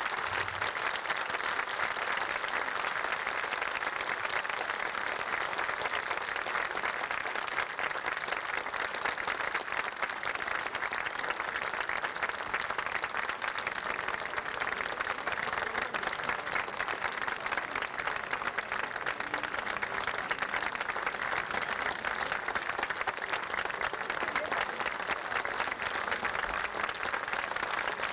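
Large audience applauding steadily: a dense, even clatter of many hands clapping, starting just as the orchestral music ends and holding at the same level throughout.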